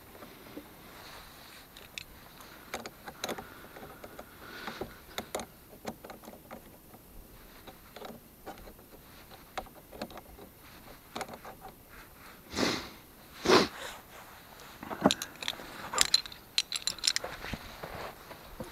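Handling noises: scattered clicks, scrapes and rustling, with two louder rustling crunches about two-thirds of the way through and a quick run of sharp clicks near the end.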